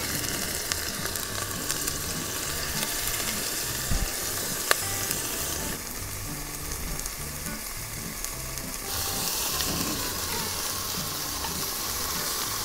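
Slices of Weißwurst sizzling steadily as they fry cut-side down in hot clarified butter in a pot, with a couple of sharp clicks a little before the middle.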